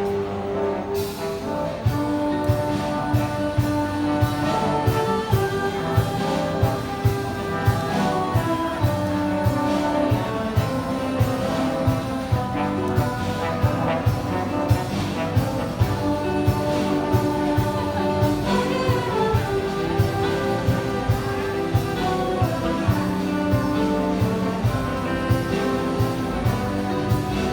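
Jazz big band playing: the brass section of trumpets and trombones holds and moves through chords, and the drum kit comes in about a second in with regular sharp hits and cymbals under the horns.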